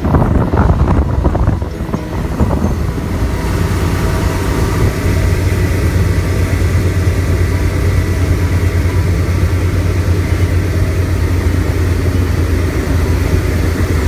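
Motorboat engine running steadily at towing speed, a low drone with water rushing in the wake. In the first couple of seconds, wind buffeting and handling noise on the microphone.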